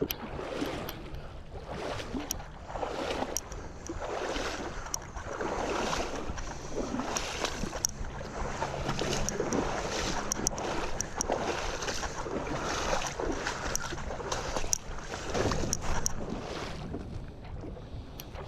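Water sloshing and splashing around a kayak on a river, swelling and fading about once a second, with scattered light clicks and knocks.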